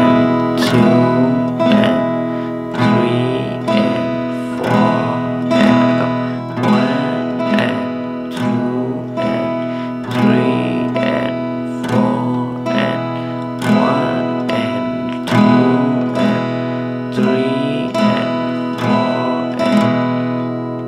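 Acoustic guitar strummed in a steady, even rhythm, one chord ringing on through repeated strokes. It is a basic strumming pattern played against an eighth-note count.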